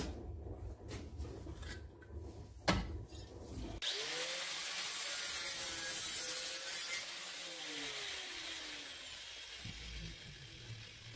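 Handling noise with a sharp knock, then a small angle grinder starts about four seconds in and cuts through a thin metal mop-handle tube clamped in a vise. It runs for about five seconds, then winds down with a falling pitch.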